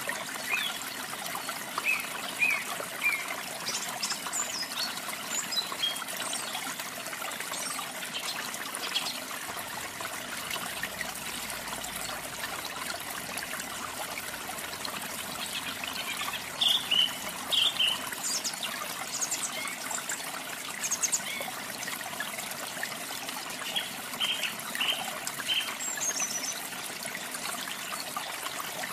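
A waterfall runs steadily, with canaries giving short bursts of chirps every few seconds, busiest in the second half.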